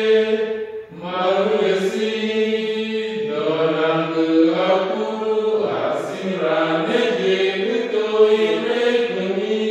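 Group of voices singing a slow, chant-like song in Ngambay, with long held notes and a short break between phrases about a second in.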